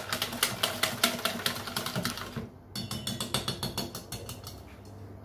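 Wire whisk beating cake batter in a stainless steel bowl, the wires clicking rapidly against the metal. It goes in two runs with a short pause about halfway.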